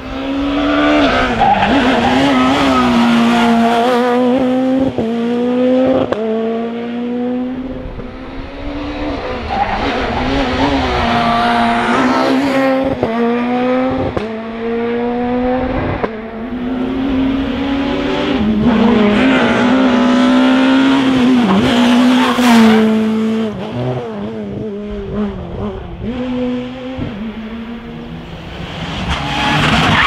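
Rally cars at full throttle, passing one after another: each engine revs high and climbs in pitch in runs that break at every gear change, with sharp cracks between the runs. The sound swells and fades with each car.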